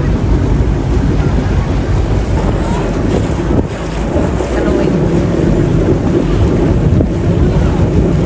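Wind buffeting the microphone over the steady low running of a river cruise boat and water moving along it.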